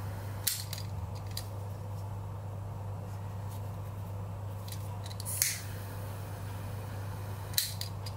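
A few sharp clicks from a push-button lighter being sparked and handled, the loudest about five seconds in, while the lighter melts the cut ends of a waxed-thread knot. A steady low hum runs underneath.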